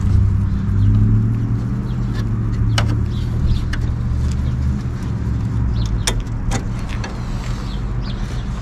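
A steady low mechanical hum, with a few sharp metallic clicks of parts being handled.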